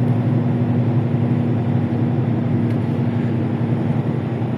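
Heavy truck's diesel engine running steadily under load, a deep drone at an unchanging pitch.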